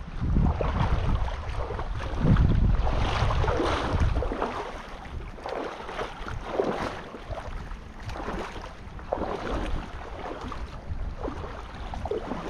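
Shallow river water rushing and splashing around a wader's legs, with wind buffeting the microphone during the first four seconds.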